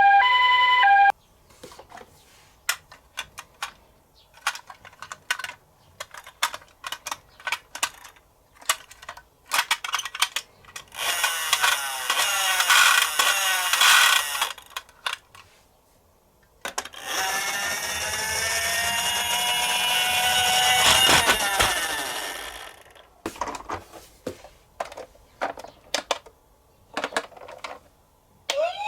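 A toy ambulance's electronic two-tone siren stops about a second in. Then come scattered plastic clicks and knocks from the toy cars, and two runs of rolling, rattling noise lasting a few seconds each as the minicars run down a slope. Right at the end a toy police car's siren starts, sweeping upward.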